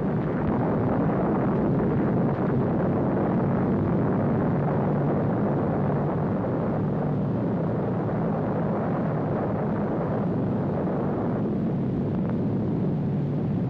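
Atomic bomb blast on a newsreel soundtrack: a loud, steady rumble that sets in just before and runs on, thinning a little in its upper part about eleven seconds in.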